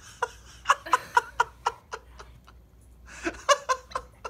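Laughter in quick, rhythmic bursts, in two bouts: the second starts about three seconds in.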